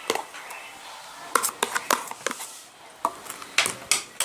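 Shaving-foam and detergent slime being squeezed and kneaded by hand, giving off a string of sharp, irregular clicks and pops.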